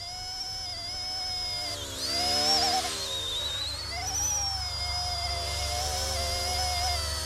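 RC ERA C123 EC135 scale RC helicopter's dual brushless direct-drive motors and rotors whining in flight, the high pitch wavering with throttle. The pitch dips and swoops back up about two seconds in, and again around four seconds.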